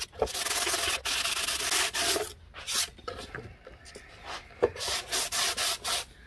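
Hand sanding of the epoxy-coated wooden hull of a model hydroplane with 150-grit sandpaper on a hardwood sanding block. It makes rasping back-and-forth strokes, two long ones in the first two seconds, then shorter, quieter strokes.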